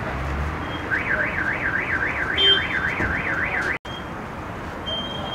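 An electronic alarm warbling up and down about four times a second, starting about a second in and cutting off suddenly near four seconds in, over steady street bustle.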